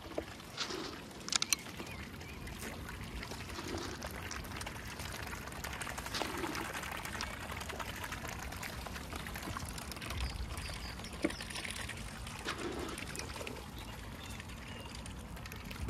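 Water splashing and trickling, with scattered small splashes and light clicks.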